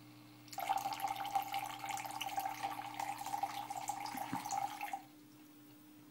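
Small relay-switched fountain pump running with a steady whine as liquid splashes from a copper tube into a plastic cup. It starts about half a second in and cuts off suddenly about five seconds in.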